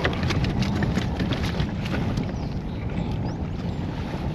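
Wind buffeting the microphone and water lapping at a kayak's hull, with a quick run of small clicks and knocks through the first two seconds or so.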